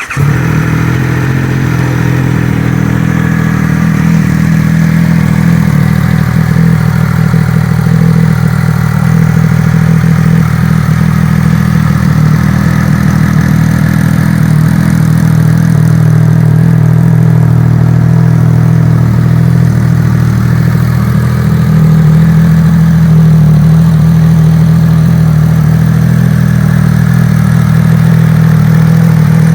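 Triumph Speed Triple 1200 RS inline-three engine, breathing through an aftermarket MV Agusta exhaust, starts up and settles into a steady idle. It gets a little louder about three-quarters of the way through.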